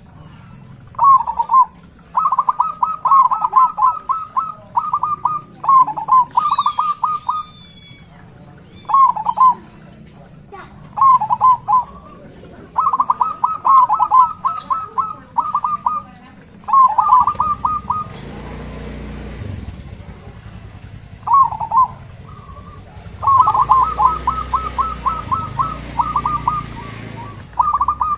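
Zebra dove (perkutut) singing its cooing song: quick, rolling staccato coos given in phrases of half a second to a few seconds, repeated again and again. Another small bird chirps briefly about six seconds in, and a low rushing background noise rises twice in the second half.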